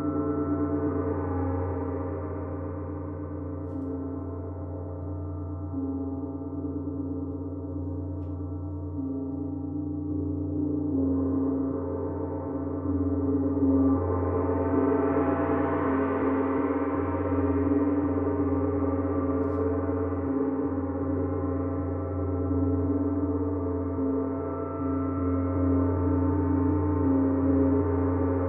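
Gongs played in a continuous wash: a deep, steady hum under many shimmering overtones. It swells about a second in and again around the middle.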